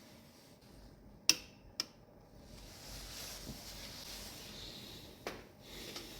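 Click-type torque wrench giving a single sharp click as it reaches its set torque on the wheel speed sensor bolt, about a second in, followed half a second later by a lighter click and by another click near the end.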